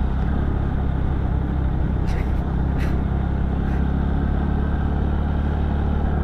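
Scooter riding along at about 30 km/h, gently speeding up: a steady low engine hum under wind and road noise on the camera microphone, with a few faint ticks a couple of seconds in.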